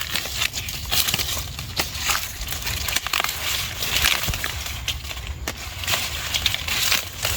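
Irregular crackling and snapping of dry plant material being handled, such as corn stalks and leaves, over a low steady rumble.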